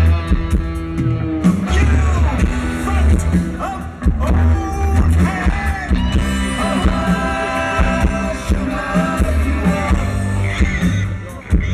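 Live rock band playing through a large outdoor PA, with a sung lead vocal over guitar, bass and drums, recorded from among the crowd.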